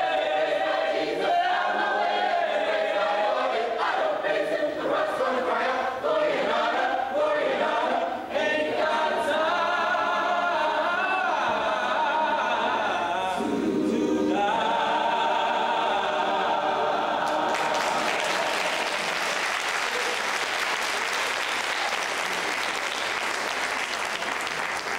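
Large mixed choir singing a spiritual, its closing phrases ending on a long held chord about two-thirds of the way through. The audience then breaks into applause, which runs on to the end.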